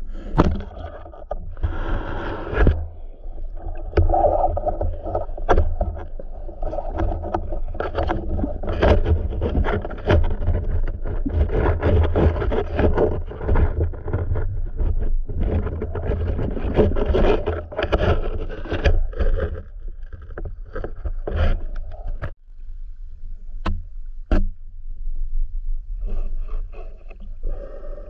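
Muffled underwater noise picked up by a diver's submerged camera: water rushing and rumbling, with frequent knocks and scrapes from handling the spear. The rumbling eases off near the end, leaving two sharp clicks a moment apart.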